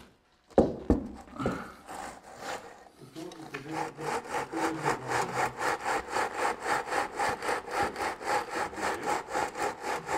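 A couple of sharp knocks, then from about three seconds in a steady back-and-forth scraping of a hand tool, about four strokes a second.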